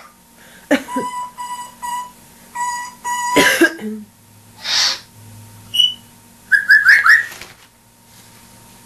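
African grey parrot calling: a run of steady, beep-like whistled tones, then a short hiss, a brief high chirp and a quick cluster of rising chirps.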